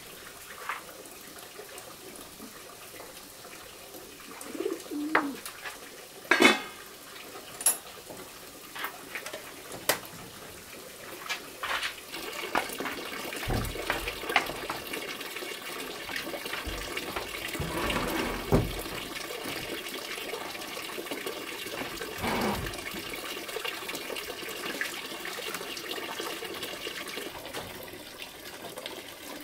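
Clinks and knocks from a steamer pot and utensils as cooked sticky rice is served, then a steady rushing background with a few dull low thumps.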